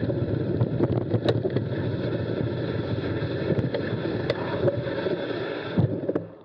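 Mountain bike tyres rolling slowly over a wet gravel and dirt track, a steady rough rumble with scattered clicks and ticks from stones and the bike rattling. The noise stops suddenly near the end.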